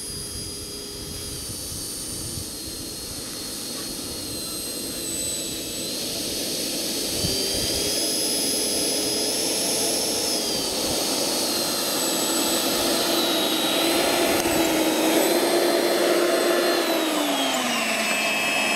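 Radio-controlled F-15 model jet taxiing with its engines running: a steady jet whine that grows louder as it comes closer. Its pitch shifts a few times and drops about a second before the end.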